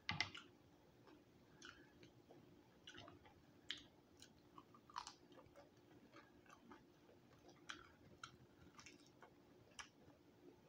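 A crunchy bite into extra-crispy roasted quail at the start, then faint chewing with scattered small crunches and mouth clicks.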